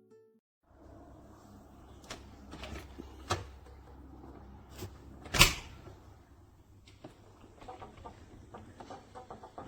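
Several sharp clicks and knocks of a door and its latch being handled, the loudest about five and a half seconds in, over a faint room hiss.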